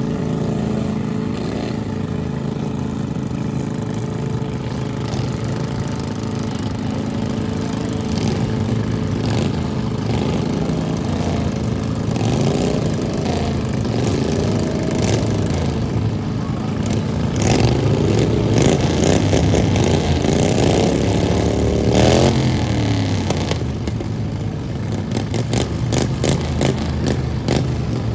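Lawn mower derby engines running, at first steady, then revving with rising and falling pitch from about halfway, loudest a little past that; sharp bangs and knocks break in, most of them in the last few seconds.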